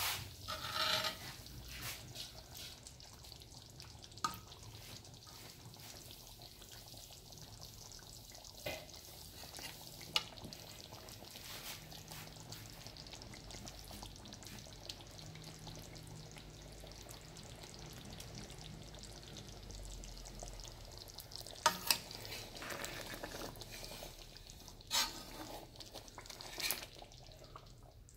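Beef and potato curry frying in a large metal pot: a faint, steady sizzle. A metal ladle stirs it, with a few sharp scrapes and knocks against the pot, several of them near the end.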